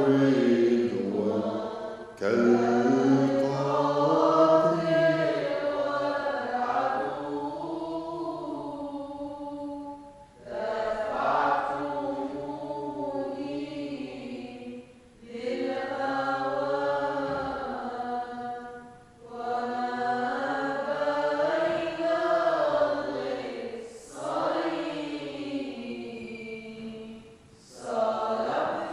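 Voices singing a slow, unaccompanied liturgical hymn in long melodic phrases. Short breath pauses fall between the lines, about six times.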